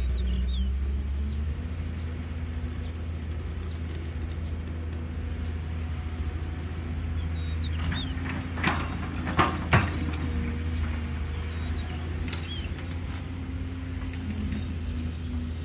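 Caterpillar excavator's diesel engine running steadily, settling slightly lower about a second and a half in. A few sharp knocks and scrapes, the loudest sounds, come around the middle, and birds chirp briefly now and then.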